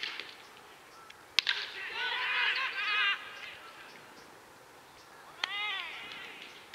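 Baseball players shouting high-pitched calls across the field during a pitch. A sharp crack of the ball comes about a second and a half in, followed by a run of shouts; another knock and a short falling call come near the end.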